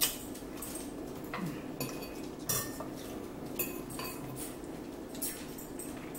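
Metal fork clinking and scraping against a plate as salad is picked up, several sharp clinks spaced about a second apart over a steady low room hum.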